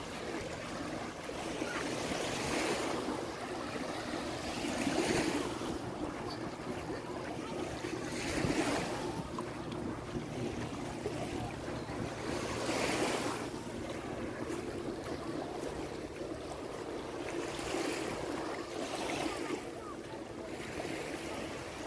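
Small Adriatic Sea waves breaking and washing up on a sandy beach, surging every few seconds.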